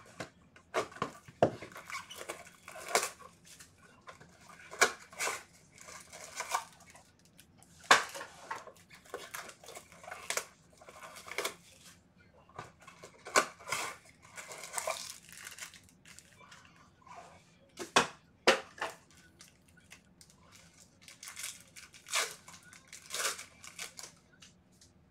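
Wrapping of a trading-card hobby box being torn open and foil card packs handled, in irregular bursts of tearing and crinkling, with a few sharp clicks along the way.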